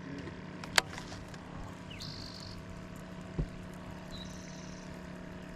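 Steady low motor hum, with a sharp click about a second in and a dull knock past the middle. Short high chirps come twice.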